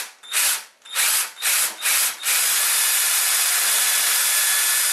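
Cordless drill boring a pilot hole into MDF: about five short bursts on the trigger, then the drill runs steadily through the board.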